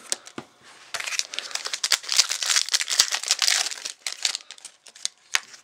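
A foil trading-card pack wrapper crinkling and crackling in the hands for about three seconds, with a few light clicks before and after.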